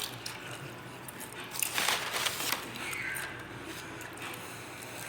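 Close-up eating sounds: chewing and wet mouth noises, with a louder noisy burst about two seconds in.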